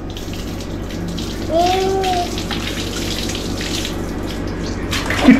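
Water poured from a plastic mug over a child being bathed, splashing steadily onto the floor. A short vocal sound is heard about a second and a half in, and a voice starts near the end.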